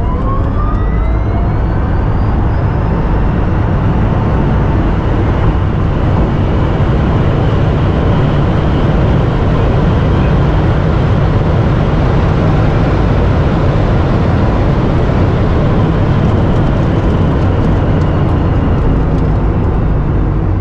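Rimac Nevera's electric motors whining and rising in pitch under full acceleration during the first couple of seconds, then a loud, steady rush of wind and tyre noise at very high speed.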